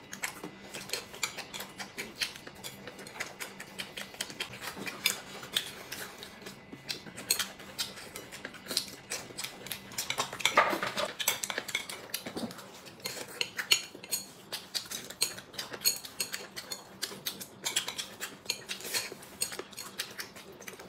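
Chopsticks clicking and scraping against porcelain plates and bowls while two people eat, with many small irregular clinks, alongside chewing.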